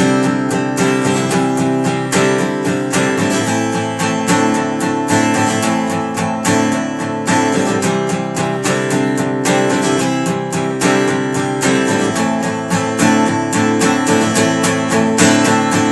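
Music: an acoustic guitar strummed in a steady rhythm, an instrumental break with no singing.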